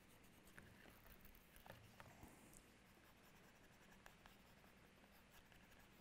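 Faint rubbing of a leather edge slicker burnishing the dampened edge of a leather case, with a few soft ticks.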